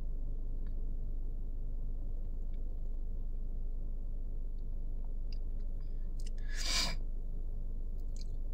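Steady low hum inside a car, with a few faint ticks and one short breath about seven seconds in.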